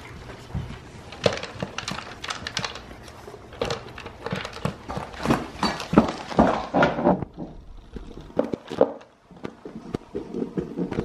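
A dog eating dry kibble from a plastic slow-feeder bowl: irregular clatter and clicks of kibble and teeth against the plastic ridges, chewing, and the bowl knocking and shifting on the floor.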